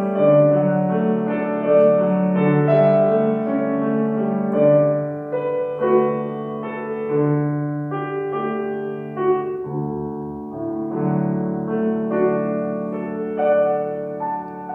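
Solo grand piano played live, held chords under a melody line, growing softer near the end.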